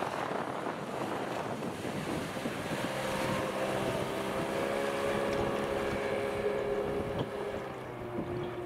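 Outboard motor running at speed on an inflatable boat crossing choppy water, with wind buffeting the microphone and water rushing past the hull. A steady engine drone comes through more clearly from about three seconds in and eases slightly near the end.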